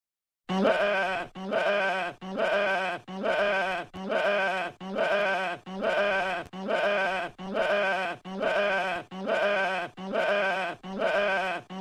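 Sheep bleating: one wavering bleat repeated over and over in an even loop, each call under a second long, starting about half a second in.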